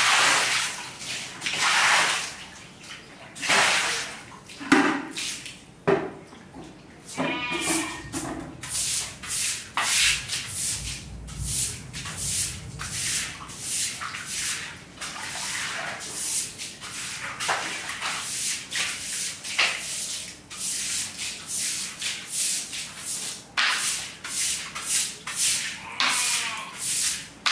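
Water poured from a plastic bucket splashing onto a tiled floor in several gushes, then a plastic-bristled broom scrubbing the wet tiles in steady strokes, about two a second: the floor being washed down.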